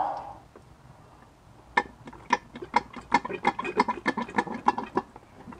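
Hand-operated fluid transfer pump being worked by hand, giving a quick, slightly uneven run of clicks at about four a second that starts nearly two seconds in, as gear oil is pumped through its hose.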